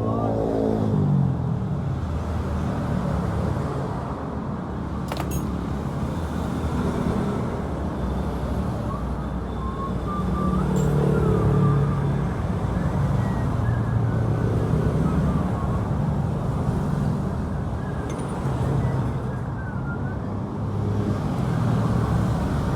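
Motor vehicle traffic: engines running with a steady low rumble, one engine's pitch falling off about a second in.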